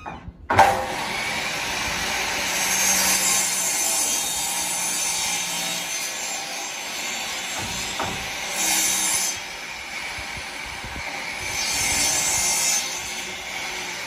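Handheld electric circular saw starting abruptly about half a second in, then running and cutting through a wooden board, growing louder in several stretches as it cuts.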